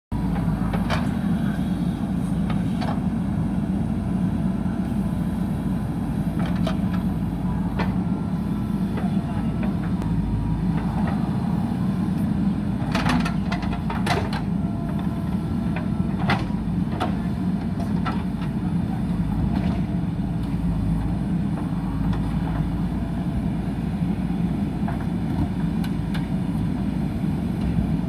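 JCB backhoe loader's diesel engine running steadily under load while its front bucket pushes and levels loose soil, with occasional short knocks from the machine at work.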